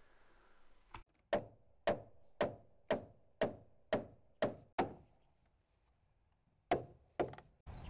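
Heavy blows of a hand tool on a timber log: eight sharp knocks at about two a second, a pause of nearly two seconds, then two more.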